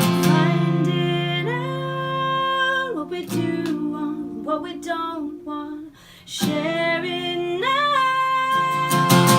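Female singer holding long, wavering sung notes over ringing acoustic guitar chords, with a short break about six seconds in; strummed guitar picks up again near the end.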